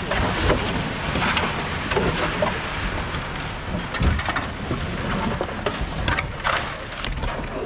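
Wet concrete pouring into column formwork: a continuous rough, splattering rush with scattered knocks and a couple of heavier thumps.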